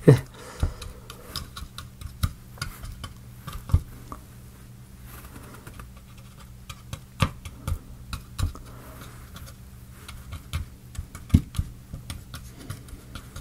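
Irregular light clicks and taps of a wooden applicator stick against a laser-cut plywood plate as lubricant is dabbed around its pegs, over a faint steady low hum.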